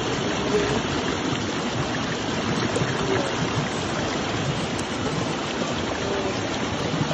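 Shallow stream water running steadily over rocks.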